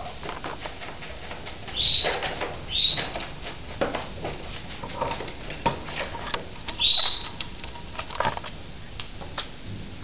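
Paper bag crinkling and tearing in a steady scatter of small clicks as a hawk-headed parrot chews at it from inside, with a parrot giving three short, high-pitched squawks about two, three and seven seconds in.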